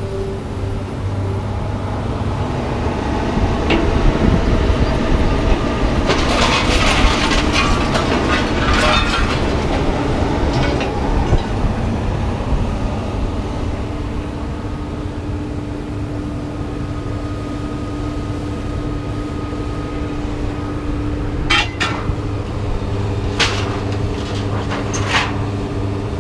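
Vehicle engine running steadily while loose scrap metal rattles and clinks, with longer bursts of clatter about six seconds in and again near the end.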